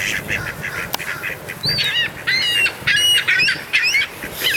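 A flock of gulls and ducks calling, a rapid series of short, high, overlapping calls, busiest in the second half, as the birds crowd in to be fed. One sharp click about a second in.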